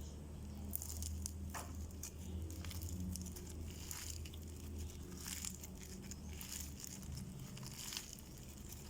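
Crunchy floam slime being squeezed and worked by hand, its foam beads crackling and popping irregularly, over a low steady hum.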